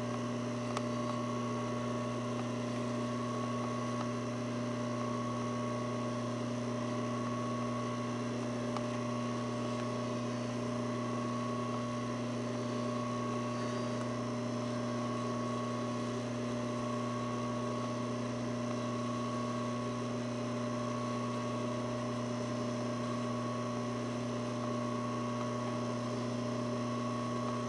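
Steady electrical hum made of several held tones, a higher one wavering on and off about every two seconds.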